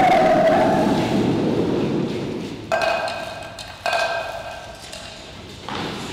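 A low rumble with a whine that rises and then holds a steady tone, followed by two sudden ringing pings about a second apart, each fading away.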